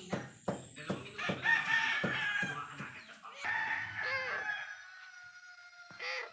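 A rooster crowing, the last call held for a couple of seconds. Under the first half runs a regular series of sharp knocks, about two or three a second.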